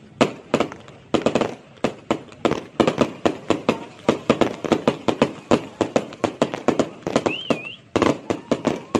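Fireworks display: a dense barrage of aerial shells bursting, several bangs and crackles a second. A short warbling whistle rises and falls about three-quarters of the way through.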